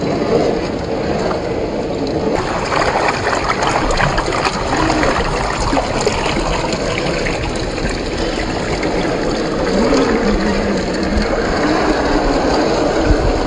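Electric drive of a 1/10-scale RC rock crawler with a 540-size 35-turn motor, its whine rising and falling with the throttle as it climbs, mixed with the tyres grinding and scraping over rock.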